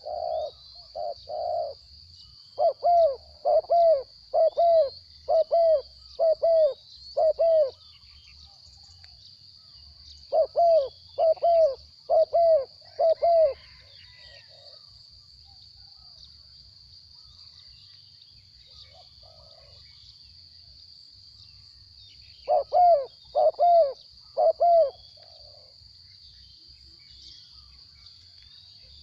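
Spotted doves cooing: runs of short, evenly spaced coos in several bouts with pauses between, over a steady high-pitched insect drone.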